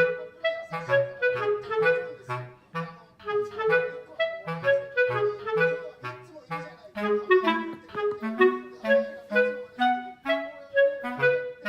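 Light, bouncy background music: a melody of short, detached woodwind notes over a hopping bass line.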